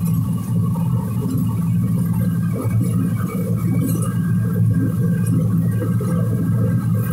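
Combine harvester running steadily while picking corn, heard from the cab: a constant low engine and machinery hum with a fainter steady high whine.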